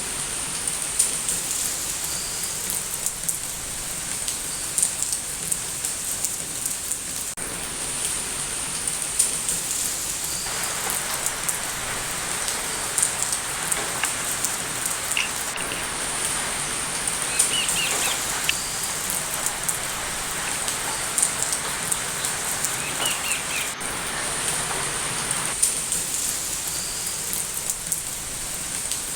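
Steady rain falling, with many drops pattering on a hard surface, and a few faint bird chirps now and then.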